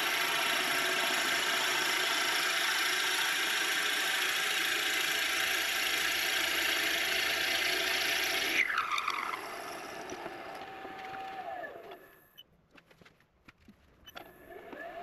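Wood lathe spinning a bolly gum pen blank while a drill bit held in the tailstock chuck bores into it: a loud, steady grinding with a running whine. About nine seconds in, the lathe is switched off and its whine falls away to near silence with a few clicks, then a rising tone near the end as it starts up again.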